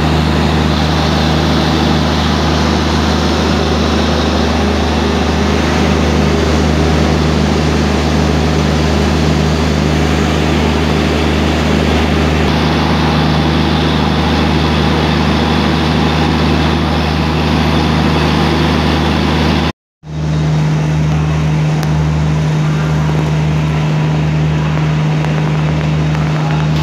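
Steady mechanical hum of a train standing at the station, with a constant hiss over it. The sound drops out for an instant about twenty seconds in, then carries on with a stronger hum.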